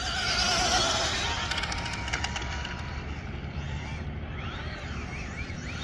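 High-speed brushless electric RC car passing, its motor whine loudest about a second in and then falling in pitch as it moves off.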